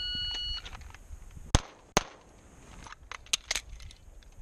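A shot timer's start beep, one steady high tone about half a second long, then two handgun shots about half a second apart. Several fainter sharp cracks follow about a second later.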